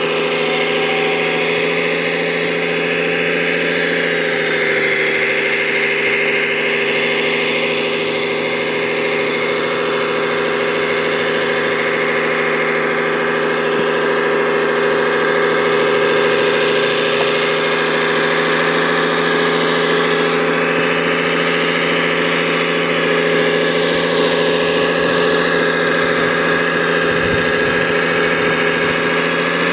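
Steady engine drone from radio-controlled construction models at work, with a higher whine that rises and falls.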